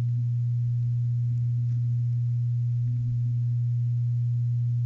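A steady, low, unchanging hum, a single tone.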